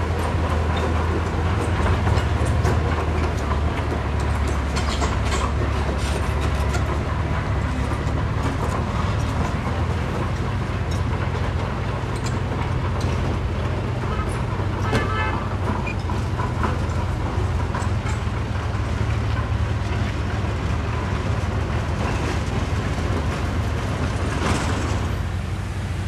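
Heavy construction machinery's diesel engine running steadily and loudly, with scattered knocks and rattles.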